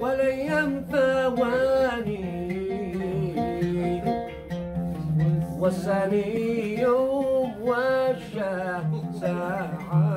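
A man singing a traditional Sanaani Yemeni song, his voice bending and wavering in pitch, with an oud accompanying him.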